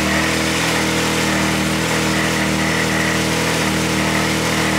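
Can-Am Maverick X3's turbocharged three-cylinder engine idling steadily during a run-up to check for overheating. The owners suspect an overheating fault that has hurt the turbo.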